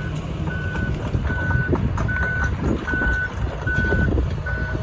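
Backup alarm on heavy earthmoving equipment beeping at one steady pitch, a little more than once a second, over the machine's diesel engine rumble: the machine is reversing.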